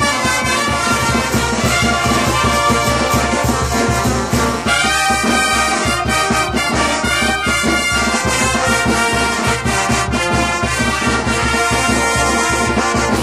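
Brass band music: trumpets and trombones playing a tune over a steady bass-drum beat.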